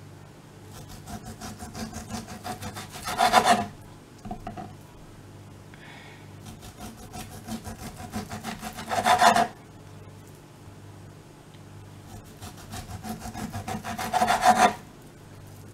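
Chef's knife sawing back and forth through raw beef on a cutting board, cutting three thin slices. Each slice is a run of quick rasping strokes that grows louder and is loudest just as the slice is finished.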